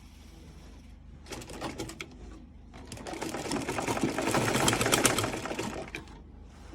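Sewing machine stitching in two runs: a short burst about a second in, then a longer run that grows louder before stopping about six seconds in.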